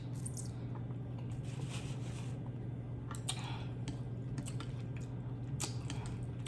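Close-miked wet chewing of Buldak carbonara ramen noodles: soft squishy mouth sounds and scattered small clicks, over a steady low hum.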